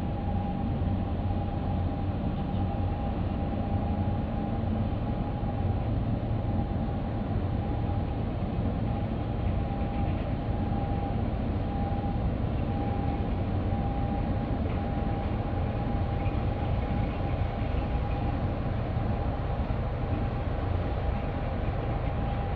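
Container ship under way, its engines and machinery giving a steady low rumble with a constant whine held above it.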